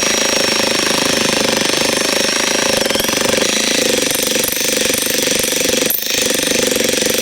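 A jackhammer hammering steadily into a tough round of elm firewood that is slow to split, with a brief break about six seconds in.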